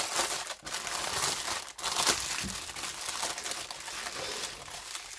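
Clear plastic bag crinkling as it is handled, its small packets of diamond-painting drills shifting inside, in an irregular rustle with short pauses.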